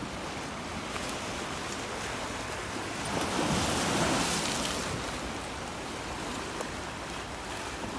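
Surf washing on the shore, a steady hiss with one wave swelling up and falling away about three to five seconds in.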